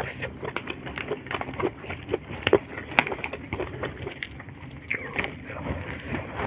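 Close-miked eating sounds: chewing, along with the crisp crackle of a raw lettuce leaf being torn apart by hand, heard as many irregular sharp snaps and clicks.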